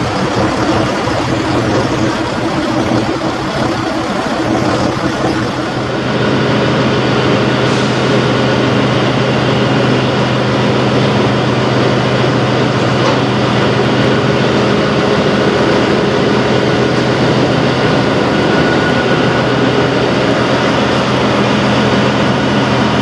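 Peterbilt semi truck's diesel engine idling with a steady hum, growing slightly louder and steadier about six seconds in.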